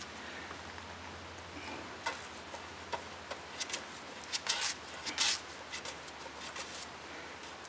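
Short, soft, scratchy strokes of a small brush spreading unthickened epoxy onto the wooden scarf surface of a boat plank, scattered irregularly over a faint steady low hum.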